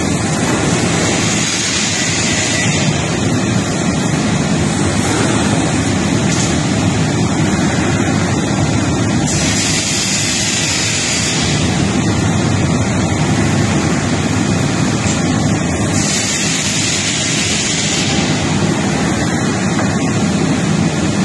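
Steady mechanical rush of a glass cutting line and its machinery running. A sharper high hiss comes and goes, about ten seconds in and again about sixteen seconds in.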